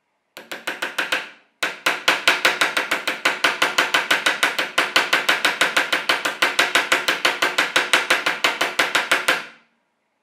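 Small hammer tapping quickly on a dented metal drawer pull resting on a wooden block, beating the dent out. Light, ringing metallic taps at about six a second, with a short break about a second and a half in, stopping near the end.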